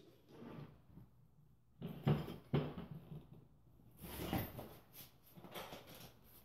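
Knocks and clatter of a bare ATV engine crankcase and tools being handled on a metal workbench during a rebuild: two sharp knocks about two seconds in, another just after four seconds, and lighter ones near the end.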